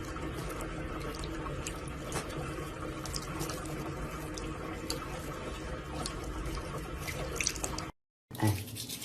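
Water running steadily, with small drips and splashes, stopping abruptly near the end.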